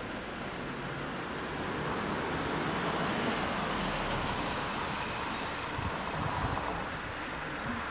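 Road traffic noise: a vehicle passing on the street, its sound swelling for a few seconds and then fading.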